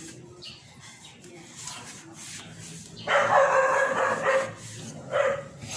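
A dog barking: a loud run of barks about three seconds in, then one more short bark near the end.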